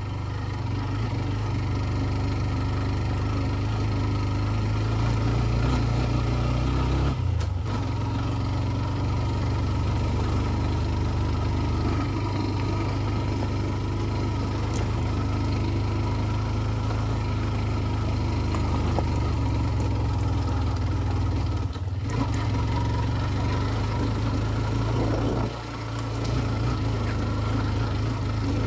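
TVS Ntorq 125 scooter's single-cylinder engine running at a steady pitch, with two brief dips in the sound.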